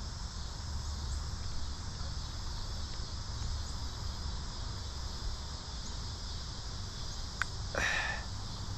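Insects chirring steadily over a low outdoor rumble, with a brief noisy sound near the end.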